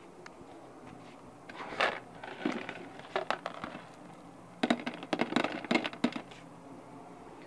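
Small hard food pieces dropped by hand into a dish, rattling and clattering in three bunches of clicks: one at about two seconds, a short one near three seconds, and a longer run a little past the middle.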